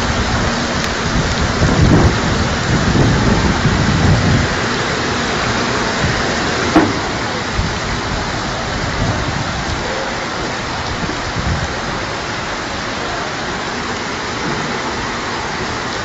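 Heavy water noise of a flash flood: a steady hiss, with low rumbling between about two and four and a half seconds in and a single sharp knock about seven seconds in.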